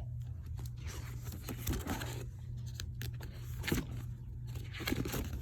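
Scrapbook pages being turned and handled: paper and page sleeves rustling and crinkling in short scattered bursts, over a steady low hum.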